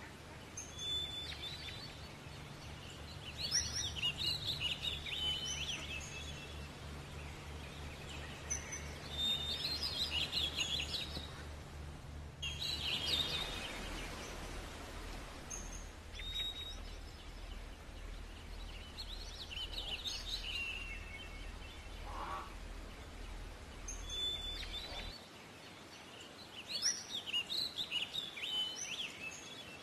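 Ducks calling in repeated bouts of rapid, high chattering calls every few seconds, over a faint steady low hum.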